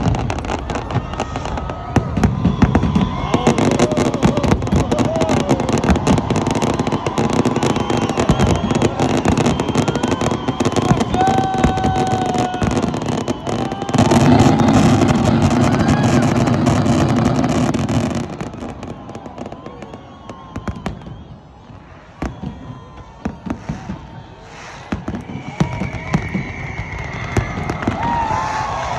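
New Year fireworks display: a dense barrage of bangs and crackling that is heaviest about halfway through, then drops off sharply to scattered pops. People's voices are mixed in.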